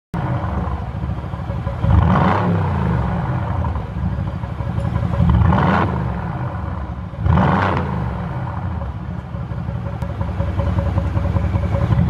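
Mercedes-AMG GT S 4.0-litre twin-turbo V8 idling through its stock exhaust, blipped three times. Each time the revs jump and then fall back to idle.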